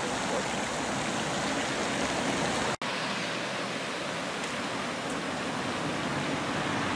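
Steady rushing noise of wind on the microphone, with no distinct events. The sound drops out for an instant nearly three seconds in.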